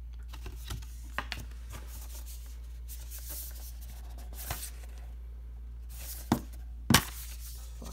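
A Blu-ray steelbook case and its cardboard slipcover being handled and turned over: soft rustling and sliding with scattered small clicks, then two sharper taps about six and seven seconds in.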